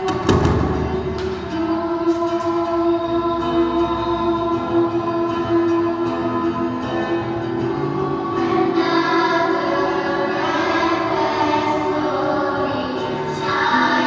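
School choir singing in harmony, several voice parts holding long notes and moving between chords. A low thump comes just after the start, and a low note sounds under the voices for about the first four seconds.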